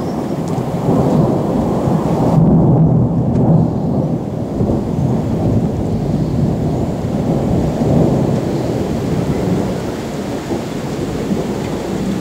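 Long, rolling thunder rumbling without a break, swelling loudest a couple of seconds in and then easing, with rain hissing faintly beneath it.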